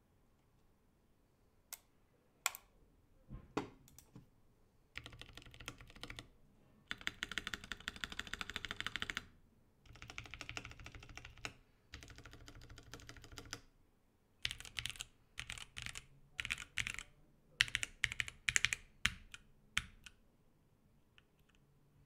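Typing on a KBDFans D65 keyboard with stock, unlubed Durock T1 tactile switches, PBT keycaps and a polycarbonate plate. A few single key presses come first, then several runs of fast typing, then a string of slower, separate key presses that stops about two seconds before the end.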